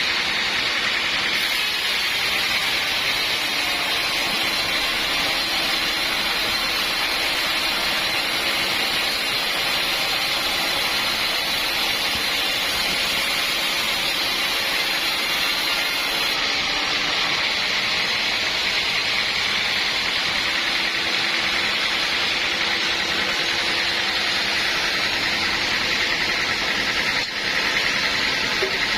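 Sawmill saw running continuously: a steady, dense machine noise with a high whine.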